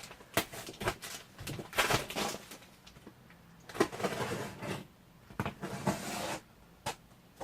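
Parcel packaging being handled and opened: irregular rustling and scraping with sharp clicks and knocks.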